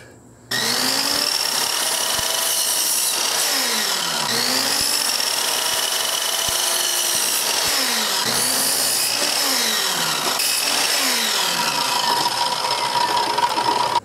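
Sliding compound miter saw cutting a painted 1x2 strip of wood. The motor spins up, runs through the cut and winds down, about three times, each run starting with a rising whine and ending with a falling one.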